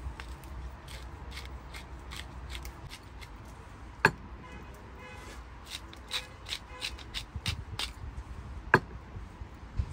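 Kitchen utensils clicking and knocking against a bowl and containers while a mayonnaise sauce is made by hand: scattered light clicks, a quicker run of them past the middle, and two sharper knocks about four and nine seconds in, over a low steady rumble.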